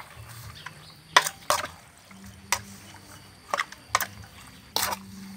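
Wet squelches of a hand kneading raw pork and pork offal with seasonings in an aluminium bowl: about six short, irregular squishes.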